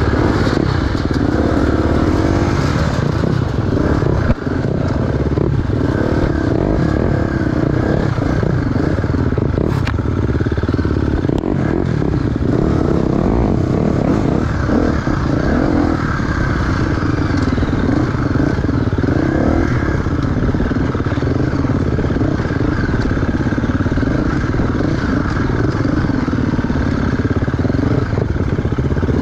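Enduro dirt bike engine running hard, its revs rising and falling as it is ridden over rough ground, with knocks and clatter from the bike; one sharp knock about four seconds in.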